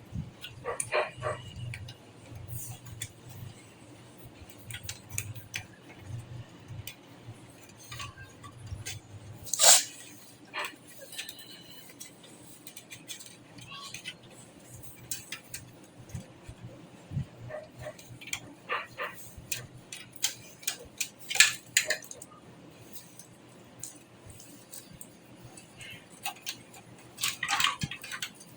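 Scattered small clicks and clinks of computer hardware being handled during assembly, with a louder knock about ten seconds in and another about twenty-one seconds in. A faint low hum runs under the first third.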